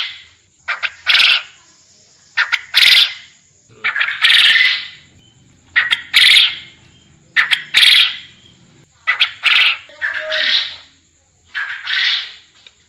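Quail calling repeatedly, about one phrase every second and a half. Each phrase is a couple of short clicking notes running into a longer, harsh, buzzy note.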